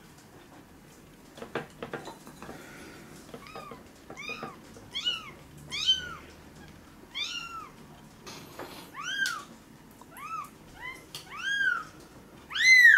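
Very young kitten, about two weeks old, mewing over and over: about a dozen short high-pitched mews, each rising then falling in pitch, the loudest near the end. A few light knocks come before the mewing starts.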